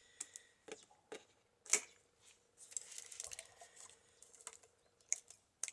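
Scattered clicks, crackles and light rustling as a freshly repaired woven basket, bound with bird-cherry twigs, is handled.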